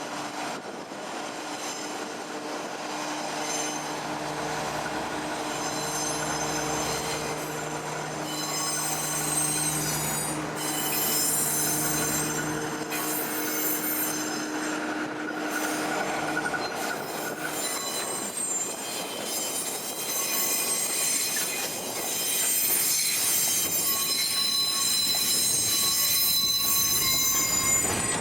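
Freight train rolling slowly over the cement works siding, its steel wheels squealing in many high, shifting tones. A steady low hum sits underneath and stops a bit over halfway through.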